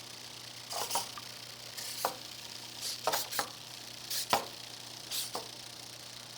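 A 3D-printed hexapod robot walking, its plastic legs and cheap servos clicking and tapping in clusters about once a second. The taps stop about five and a half seconds in.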